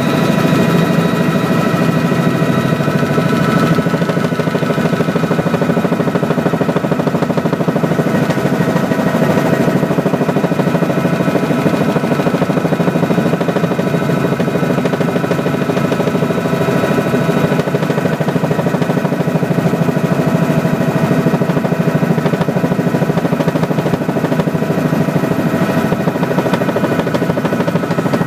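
Helicopter's engine and rotor heard from inside the cabin in flight: a steady drone with a rapid, even pulsing beat and several steady high whining tones over it.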